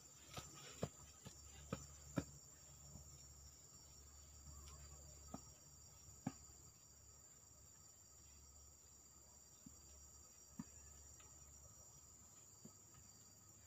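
Faint, steady high-pitched drone of forest insects, with a few soft clicks scattered through it, the loudest in the first couple of seconds.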